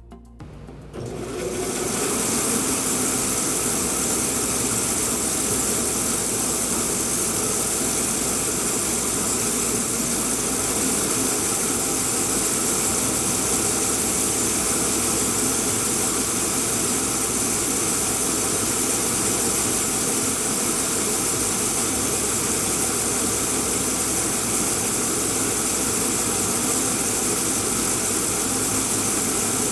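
J.A. Fay & Egan 950 Lightning bandsaw with its 10-horsepower variable-speed main motor running: a steady, even mechanical hiss and whir of the motor, 36-inch wheels and blade. The sound comes in quickly about a second in, then holds steady.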